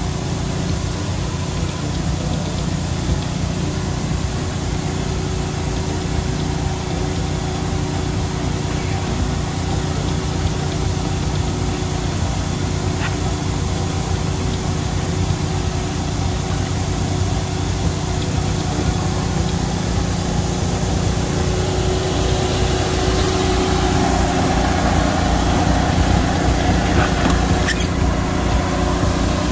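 A small engine running steadily at idle, with a constant low hum. A hiss grows louder over the last several seconds.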